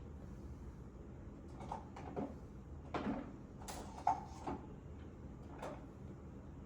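Small metal tools and switch parts handled on a workbench: a handful of short clicks and scrapes, one longer scrape about three seconds in, and a sharp click with a brief metallic ring about four seconds in, over a low hum.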